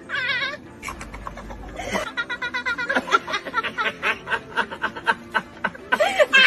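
Two adults laughing hard and helplessly, in quick repeated pulses of laughter several times a second, dipping briefly about a second in before picking up again.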